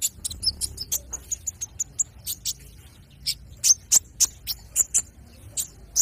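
Olive-backed sunbird (konin) calling: a rapid, irregular series of sharp, high-pitched chirps and ticks, the loudest bunched in the second half.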